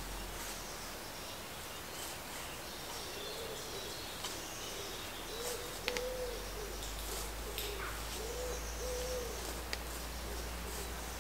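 A pigeon cooing in repeated low phrases of several notes for a few seconds, over small birds chirping. Two sharp clicks stand out, about six seconds in and near the end.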